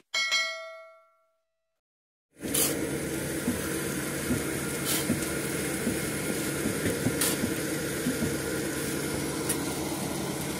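A bell-like notification ding from a subscribe-button animation, ringing out and dying away over about a second and a half. After a short silence, heavy machinery starts running steadily, with a few sharp clicks over it.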